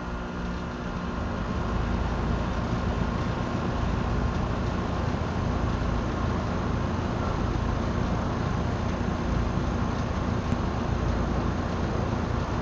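2015 Trane XR14 2.5-ton outdoor air-conditioner unit just after startup: compressor hum with a low steady tone under the rushing air of the condenser fan (a Genteq motor). The fan comes up to speed over the first couple of seconds, then the unit runs steadily.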